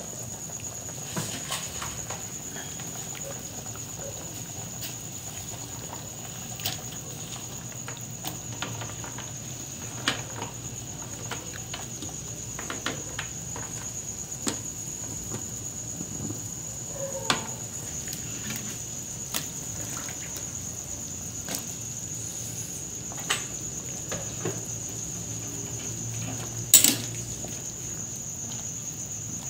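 A pot of pork sinigang broth boiling in a metal wok while vegetables are added and stirred with a metal ladle: scattered clicks and taps, with the loudest knock of the ladle against the pot near the end. A steady high trill runs underneath.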